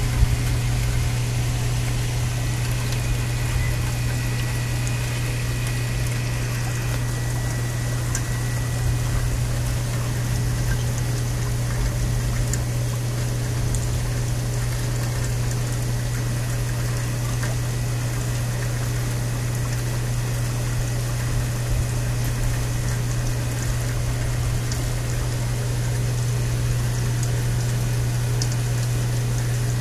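Steady rush of heavy rain and running water during a thunderstorm, with a constant low hum underneath.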